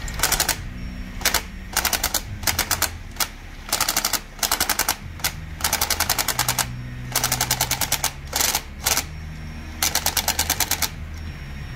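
Cordless drill turning a Honda oil pump's drive gear off the engine, running in about a dozen short bursts of rapid, even clicking as the pump pushes oil against a pressure gauge and builds resistance.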